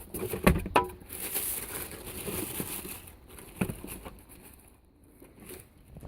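Packaging crinkling and rustling, with a few sharp knocks, as a car amplifier is unwrapped and handled; it goes quieter near the end.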